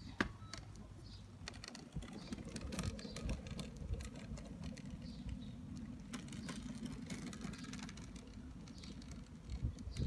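A hoverboard chair rolling over asphalt on its hoverboard wheels and small 110 mm scooter wheels: a steady low rumble with many light clattering clicks, after a sharp click at the start.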